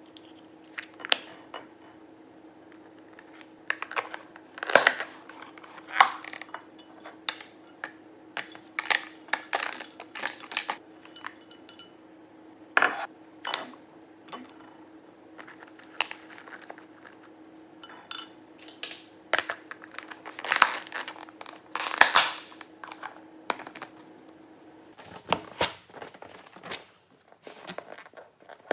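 Irregular clinks, taps and clatters of dishes and utensils, mixed with crinkling of packaging, over a steady low hum that stops near the end.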